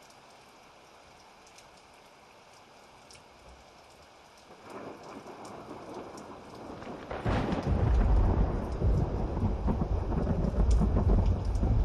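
Thunderstorm: a faint hiss of rain at first, then thunder building about halfway in and breaking into a loud, long rumble over the rain.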